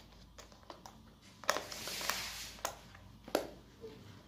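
Hard plastic oil pastel case being handled: a few sharp clicks and taps of plastic, with a scraping, rustling slide of plastic for about a second in the middle.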